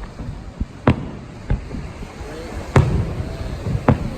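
Fireworks shells bursting in a display: a series of about five sharp bangs at uneven intervals, the loudest a little under three seconds in.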